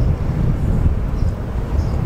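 Low, steady rumble of two diesel passenger trains passing each other on neighbouring tracks.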